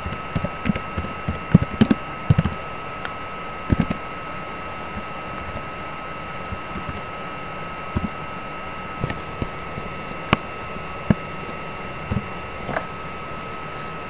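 Computer keyboard typing: a quick run of key clicks in the first few seconds, then a few scattered single clicks. Under it runs a steady high-pitched whine with hiss.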